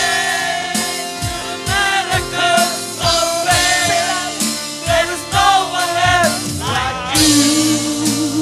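Christian worship song: singing over a band, with a steady drum beat and cymbals.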